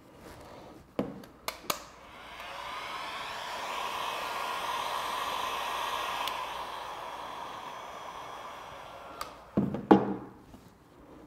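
Variable-speed heat gun blowing steadily for several seconds to heat the phone's back cover, its sound swelling and then fading. A few light clicks come before it, and a couple of loud knocks near the end as the heat gun is set down on the table.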